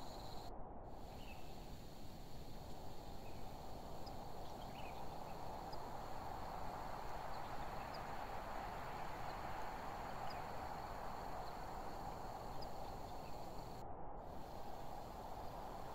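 Pine-forest ambience: insects trilling steadily at a high pitch over a low, even rushing hiss, with a few faint short chirps scattered through.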